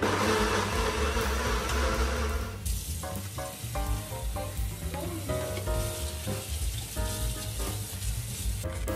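Food sizzling as it cooks for about the first two and a half seconds, then cutting off suddenly. Background music carries on alone, a melody of short notes over a low beat.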